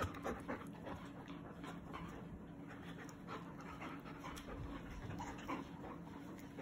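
Two Labrador retrievers play-wrestling, panting hard with scattered short scuffling and mouthing noises.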